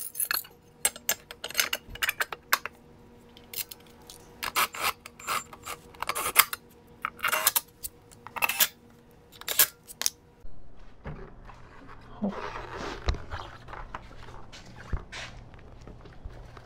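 Hand work on a scooter's centrifugal clutch parts: metal pieces and tools clinking and scraping in quick irregular strokes, easing off about ten seconds in.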